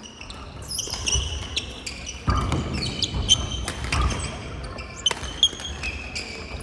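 Badminton doubles rally: rackets hit the shuttlecock with sharp clicks, and the players' court shoes squeak and thump on the wooden hall floor. The thumping is heaviest about two to four seconds in, as a player lunges.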